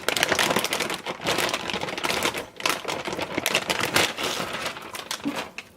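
Plastic wrapping crinkling and crackling as a new graphics card is unwrapped by hand: a dense, irregular run of crackles that thins out near the end.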